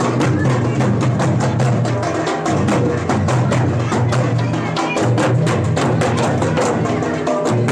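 Folk drumming: barrel-shaped double-headed hand drums and other drums playing together in a fast, steady rhythm, with sharp slaps over a deep, booming low beat.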